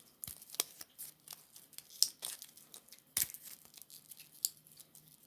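Protective plastic wrapping being crinkled and torn off a new wristwatch: irregular sharp crackles and snaps, one louder snap about three seconds in.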